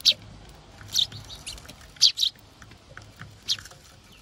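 Eurasian tree sparrows chirping: short, sharp, high chirps about once a second, some in quick pairs, with faint clicks between them.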